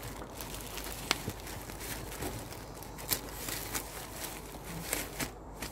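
Clear plastic packaging bag crinkling and rustling as a hand handles bagged yarn skeins in a cardboard box, with irregular sharp crackles.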